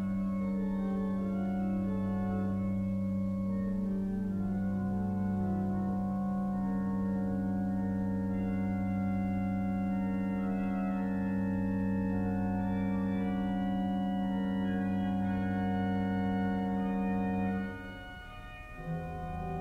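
Pipe organ playing slow, sustained chords over a long-held low note, the upper voices moving gently above it. The chord releases a little before the end and a new chord comes in just before it ends.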